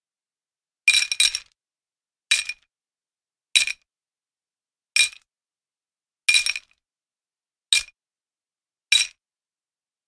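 Metal chain jingling in short, separate shakes, seven in all, about one every second and a bit, the first doubled. Each shake is a bright clinking that cuts off sharply.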